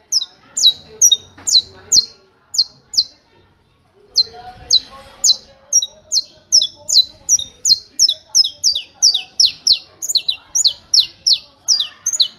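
Saffron finch (canário-da-terra) singing the 'martelo' (hammer) song: a long run of sharp, high, downward-slurred notes repeated about two or three times a second. After about three seconds it pauses for a second, then resumes in a faster, denser run, with some notes doubled.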